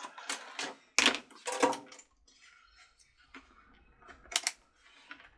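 Clicks, taps and rattles of small tools and objects being handled on a workbench: a cluster in the first two seconds, then two sharp clicks near the end.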